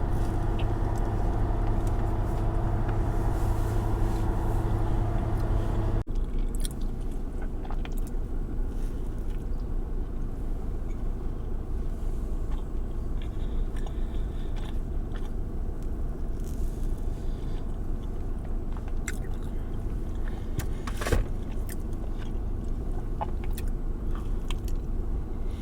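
Steady low background hum, like a car cabin's, that changes abruptly about six seconds in, with scattered faint clicks and crinkles and a sharper crackle near the end.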